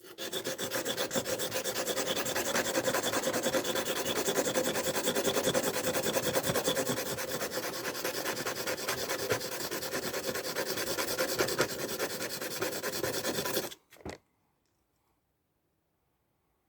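Steel knife blade being ground on a coarse sharpening stone in rapid back-and-forth strokes, reprofiling the tip of a Victorinox pocketknife blade. The scraping stops a little over three-quarters of the way through, and near silence follows.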